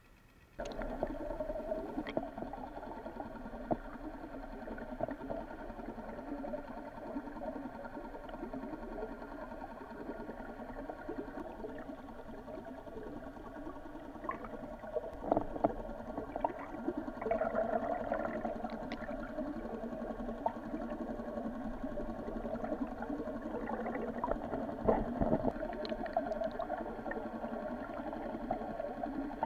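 Muffled rushing and gurgling of water picked up by a submerged camera, steady throughout, with occasional knocks.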